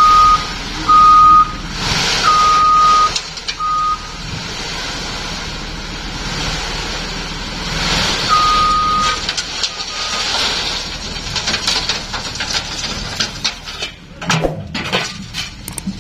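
Dump truck tipping a load of sand, its warning beeper sounding a steady high tone in short, unevenly spaced beeps: four in the first four seconds and another at about eight seconds. Under it run the truck's engine and the rush of sand sliding off the raised bed, with a scatter of clicks near the end.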